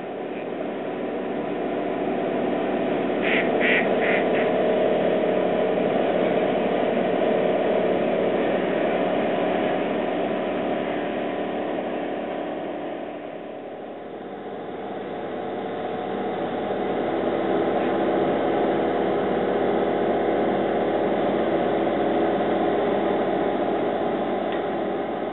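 Ducks calling on the water over a steady drone of bridge-construction machinery, with a quick run of about four short high notes about three seconds in.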